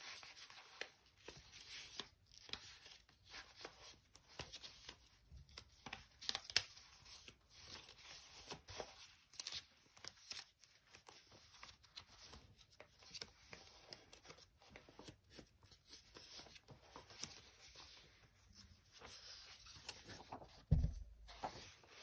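Sheets of paper rustling and flicking as a hand leafs through a stack of patterned craft papers and magazine pages. Near the end there is a soft thump.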